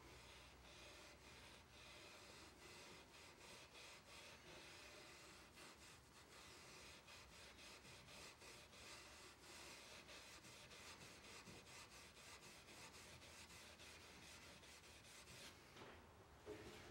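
Faint rubbing of fine steel wool, wet with Restore-a-Finish, worked in repeated strokes along the finished wooden edge of a table.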